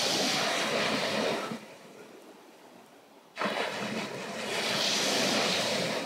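Small waves breaking on a sandy shore, twice: the first break and its wash die away about a second and a half in, and the second breaks suddenly a little past the middle and washes up the sand.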